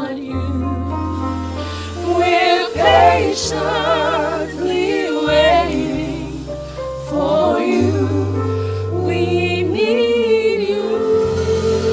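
Gospel vocalists singing over keyboard and bass guitar, the voices with wide vibrato, swelling about two seconds in and again near the end.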